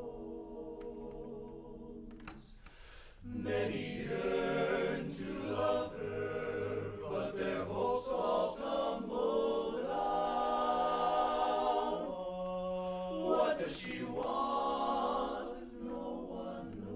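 Men's barbershop chorus singing a cappella in close harmony. A held chord fades briefly about three seconds in, then a louder, fuller passage of sustained chords follows.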